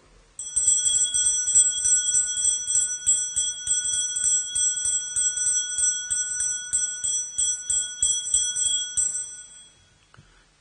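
Altar bells (sanctus bells) rung in quick repeated strokes at the elevation of the host after the consecration, a bright high ringing that fades out near the end.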